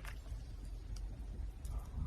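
A brief lull in a red panda's chewing: a steady low rumble with only a few faint clicks, about a second in and again near the end.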